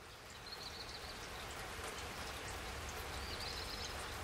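Steady rain falling: an even, continuous hiss that grows a little over the first second.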